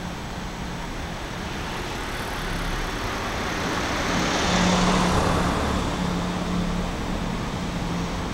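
A road vehicle passing by, its noise swelling to a peak about five seconds in and then fading, over a steady low traffic hum.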